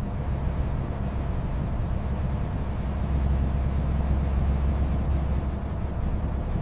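A vehicle's engine running, a steady low rumble with road or engine noise over it, as when goods are being hauled for delivery.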